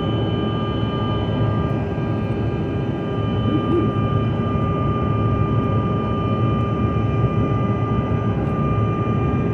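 Jet airliner cabin noise in flight: a steady rush of engine and air noise with several steady high tones running above it.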